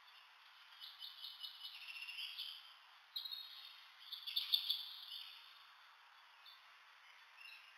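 Faint high-pitched chirping squeaks from a tiny mammal held in the hand, in two short runs about a second in and again about three seconds in, the second run louder.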